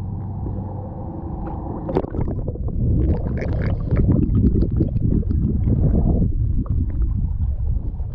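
A steady low drone, then about two seconds in a sharp splash as the snorkeler ducks under, followed by muffled underwater rushing and bubbling of water against the camera.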